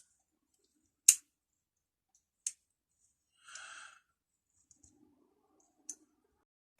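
Metal hand tools being handled: a few sharp clicks, the loudest about a second in, and a brief rustle midway.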